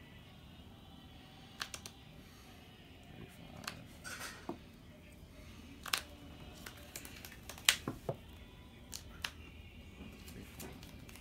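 Trading cards being handled in players' hands: about ten irregular sharp clicks and ticks, with a cluster of the loudest ones about eight seconds in.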